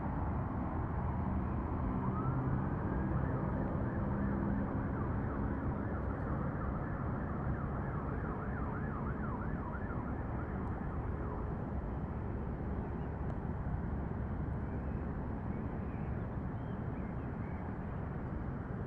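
A faint siren rising and falling in pitch, with a fast up-and-down stretch near the middle that fades out a few seconds later, over a steady low rumble.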